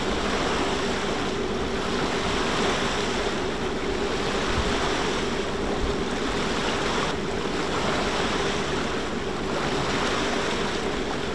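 Water rushing and splashing along the hull of a sailing catamaran under way, a steady even wash with a constant low drone beneath it.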